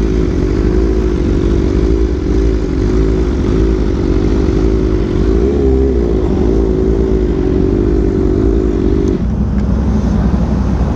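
Motorcycle engine running at a steady, slightly varying throttle, its pitch wavering gently up and down. A little after nine seconds the engine note drops to a lower pitch as the throttle comes off.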